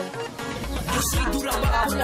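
Background music with a steady beat, a dance track with a kick drum about twice a second under cymbal ticks and pitched instruments.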